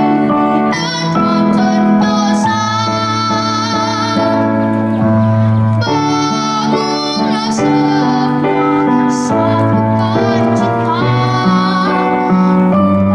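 A young girl singing a solo into a microphone over instrumental accompaniment, holding long notes with vibrato.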